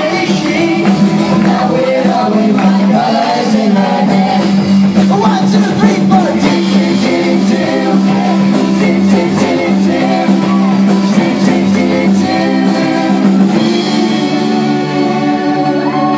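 Live rock band playing a song, with a group of singers over guitar and drums, loud and steady.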